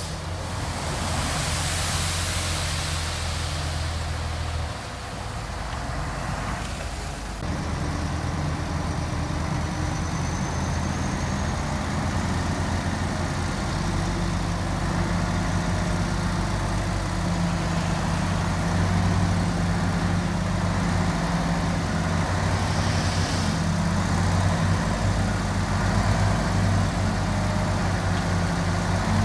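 Diesel engine of heavy earthmoving machinery running steadily, its low hum shifting in pitch about seven seconds in.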